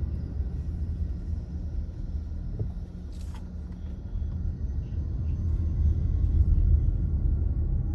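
Car driving: a steady low rumble of road and engine noise, growing louder about six seconds in, with one brief sharp click a little after three seconds.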